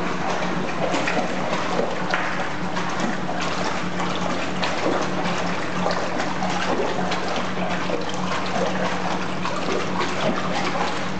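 Water churning and splashing steadily in a dog hydrotherapy tank as the dog works through it, over a steady low hum.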